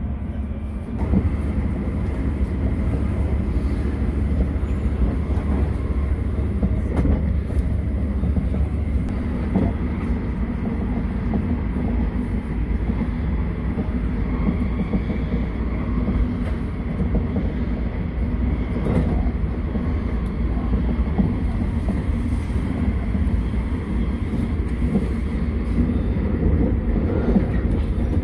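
Running noise inside the passenger car of a JR West 287 series electric limited express: a steady rumble of wheels on rail, with a few faint knocks now and then.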